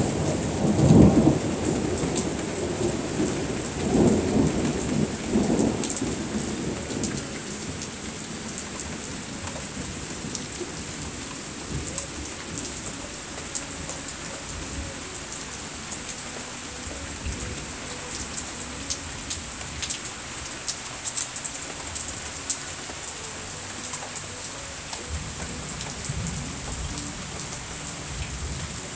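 Thunderstorm: heavy rain falling steadily, with thunder rumbling loudly about a second in and again from about four to six seconds, then rain alone with many sharp ticks of drops landing close by.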